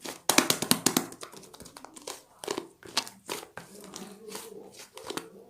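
Crinkling and rustling of something handled by hand, with a dense flurry of crackles in the first second and scattered crackles after it.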